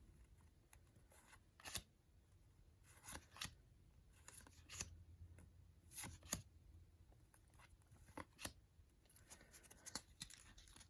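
Faint handling of paper sticker packets and stickers: scattered short crinkles, rustles and taps, a few of them in quick pairs.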